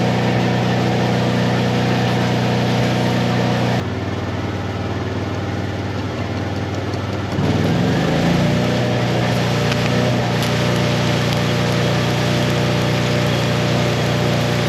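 Engine-driven Miller welder running under load during stick welding, with the steady hiss and crackle of the arc. The arc noise cuts off suddenly about four seconds in and comes back about three seconds later, when the engine note briefly rises again.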